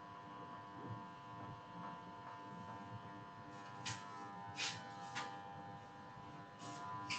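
Faint steady electrical buzz made of several held tones, with a few short light clicks or taps from about four seconds in and a couple more near the end.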